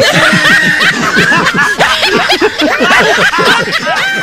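Canned laughter: a crowd of people laughing and chuckling at once, starting abruptly.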